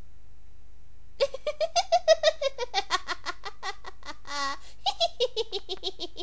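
A high-pitched female giggle begins about a second in: quick runs of "ha-ha-ha" that fall in pitch, in two bursts with a short break between them.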